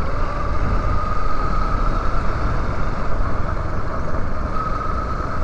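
Yamaha Lander 250 single-cylinder four-stroke motorcycle running at low riding speed, with wind rumble on the helmet-mounted microphone and a faint steady whine.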